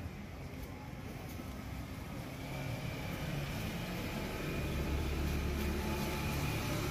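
A low, steady engine hum, like a vehicle running, growing louder about halfway through.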